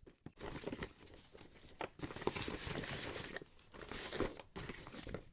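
Packaging being handled and opened: dense crinkling and rustling with quick crackles, getting louder about two seconds in.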